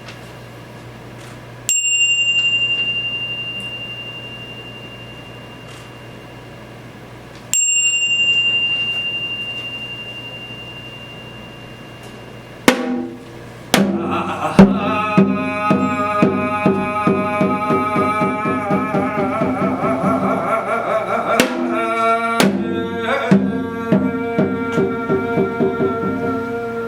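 A small high-pitched bell is struck twice, about six seconds apart, each stroke ringing out and slowly fading. About halfway through, drums come in in a fast, driving rhythm with a pitched melody over them, as traditional Korean ritual music.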